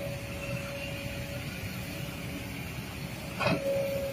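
Kobelco crawler excavator's diesel engine running under load, with a steady hydraulic whine over the rumble, and a short harsh burst about three and a half seconds in as the machine heaves against its tilted track.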